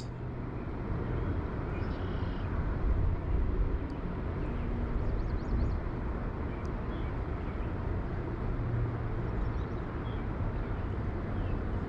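Steady rush of a creek running high and fast over rapids, with a few faint high chirps and ticks on top.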